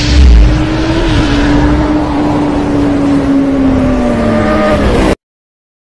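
Intro sound effect of a racing motorcycle engine held at high revs, one steady pitch that sags near the end, with a deep boom just after it starts. It cuts off suddenly a little over five seconds in.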